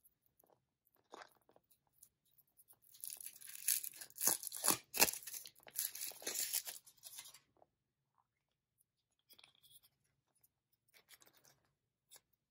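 Foil wrapper of a Kinder Surprise chocolate egg crinkling and tearing as it is peeled off by hand, loud for about four seconds with a few sharp crackles in the middle. After that come only faint, scattered handling sounds.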